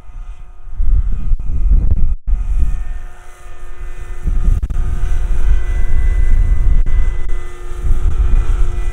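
Electric scale model helicopter (Vario Dauphine AS 365) flying: a steady whine of its electric motor and rotor drive, over a heavy low rumble on the microphone. The sound drops out for an instant about two seconds in.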